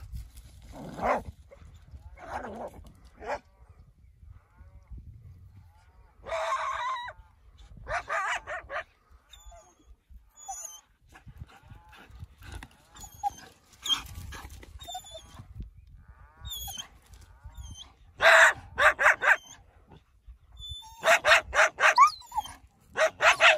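Dogs barking in short runs of rapid barks, scattered at first, then two loud runs of four or five barks in quick succession near the end.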